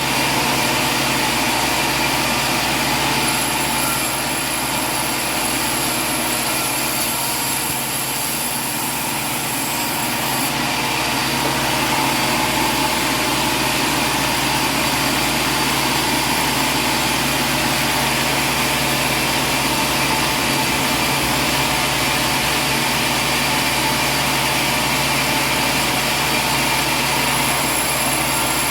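Sawmill machinery running steadily: a dense, even machine noise with a constant hum and a thin high whine, getting a little louder about eleven seconds in.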